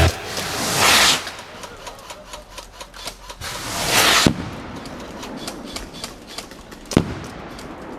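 Airsoft gunfire: scattered rapid pops and clicks of BB guns, with two rising hisses, the second ending in a sharp bang, and another sharp bang near the end.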